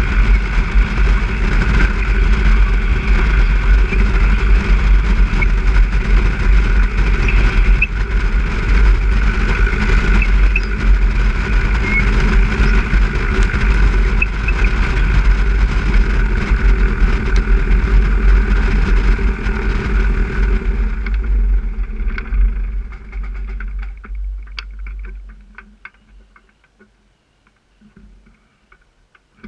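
Light aircraft's piston engine running at low power on the ground, then shut down: the sound dies away from about 21 seconds in and is gone a few seconds later. A few faint clicks follow.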